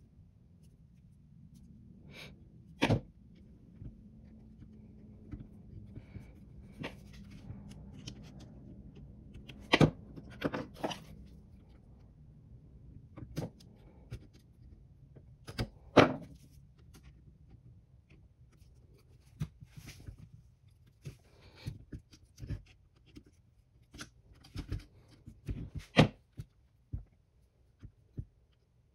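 Small metal parts and hand tools handled on a workbench during carburetor reassembly: irregular sharp clicks, taps and light scrapes, some much louder than others, over a faint low hum that fades out about halfway through.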